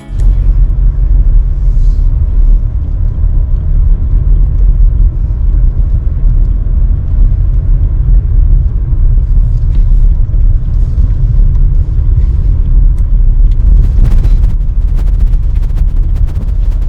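A loud, steady low rumble that starts abruptly, with faint scattered clicks above it.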